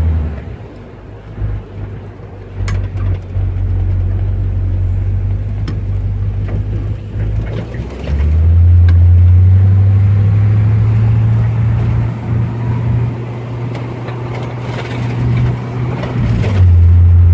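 Car driving, heard from inside the cabin: a low engine and road drone that eases off near the start, then comes back louder about eight seconds in and rises slowly in pitch as the car speeds up, with a few short clicks early on. The engine's exhaust manifold bolts have just been tightened to stop a manifold leak, and it runs without the blowing leak.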